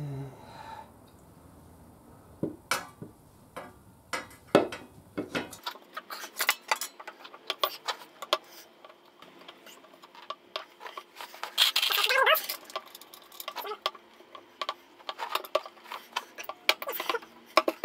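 Metallic clicks, taps and knocks as the chrome clutch cover is fitted back onto a Kawasaki Vulcan 1500's crankcase. The clicks are scattered at first and come thick and fast after about six seconds, with a louder rattle about twelve seconds in.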